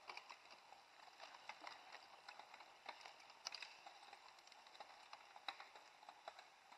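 Faint, irregular clicks and rattles of several mountain bikes riding past on a dirt trail.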